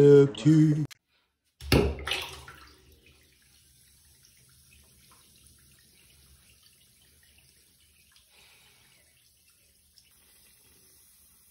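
A snatch of singing cuts off under a second in. About two seconds in comes a short louder burst of sound that fades within a second, then a bath bomb fizzes faintly and steadily in the bathwater.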